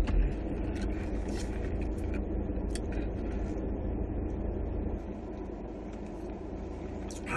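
Steady low hum of a car idling, heard from inside the cabin, with a brief thump right at the start and a few faint sips through a straw.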